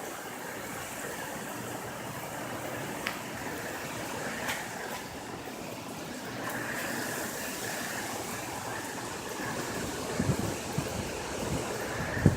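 Steady rushing of hurricane wind, with gusts buffeting the microphone about ten seconds in and again near the end.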